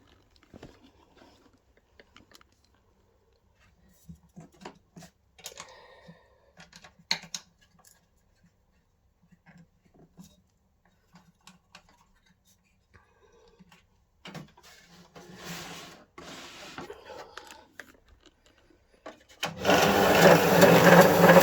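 Scattered clicks and rubbing as the motor's clamping knobs are loosened and the motor is slid across on a DeWalt DW100 benchtop bandsaw-sander, then near the end its electric motor switches on and runs steadily and loudly.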